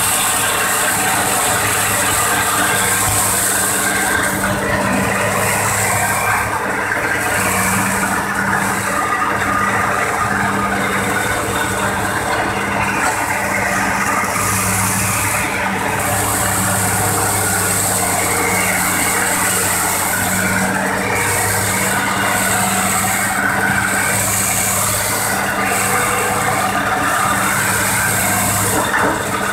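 Heavy excavator's diesel engine running steadily close by, a deep even drone with some rattle, over a high hiss that comes and goes.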